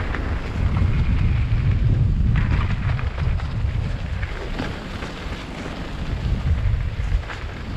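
Wind buffeting the microphone of a mountain biker's camera during a fast downhill run, a loud low rumble with scattered short clicks and rattles from the bike and trail.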